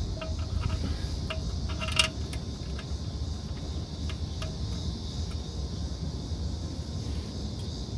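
Scattered metallic clicks and clinks from a wrench and the steel drain plug as the plug is threaded back into the oil pan and tightened, with one sharper clink about two seconds in. A steady low rumble and hiss run underneath.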